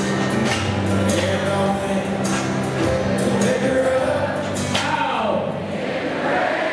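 A song with singing over steady held low notes, played at full level.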